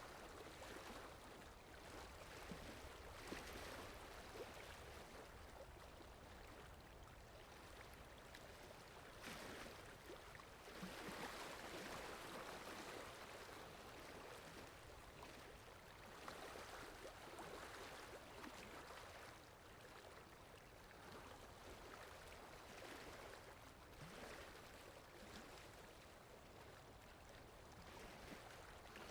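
Faint water ambience, a rushing, splashing wash of water that swells and fades every few seconds.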